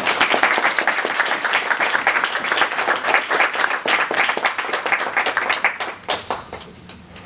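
A small group of people applauding, the clapping dying away about six seconds in.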